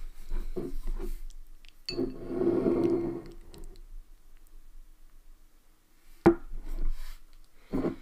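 Glass noodle bowl handled on a table: a scrape about two seconds in as it is moved, then two sharp knocks near the end.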